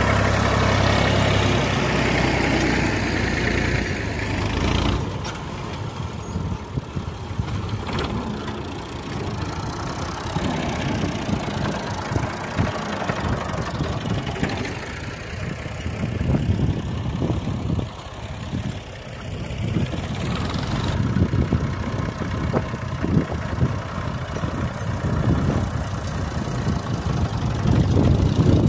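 Massey Ferguson tractor's diesel engine running under load as it pulls a plough through the soil. The sound shifts abruptly about five seconds in and again around twenty seconds in.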